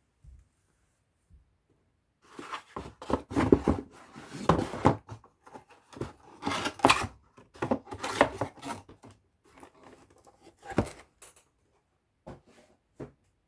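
Handling noises of an Acer Chromebook Spin 311 laptop being moved and worked by hand: a busy run of clicks, knocks and rustling scrapes starting about two seconds in and stopping near eleven seconds, then two single clicks near the end.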